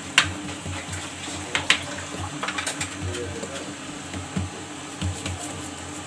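Hands patting and pressing semolina harcha dough flat on a metal baking tray, with several sharp taps along the way.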